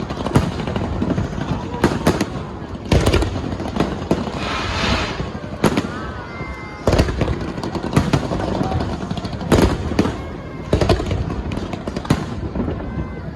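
Aerial fireworks shells bursting overhead in a string of sharp bangs, one every second or so, over the chatter of a crowd of spectators.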